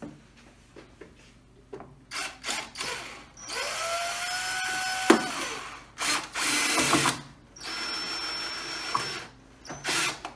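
DeWalt cordless drill-driver driving screws into a foosball table's frame in several short runs. The longest run lasts about two seconds, its whine rising as the motor spins up and then holding steady, with a sharp click partway through.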